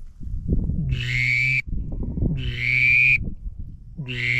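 Cast-resin duck call whistle blown while humming into it, imitating a drake mallard: three short calls, each a steady whistle tone over a low hum.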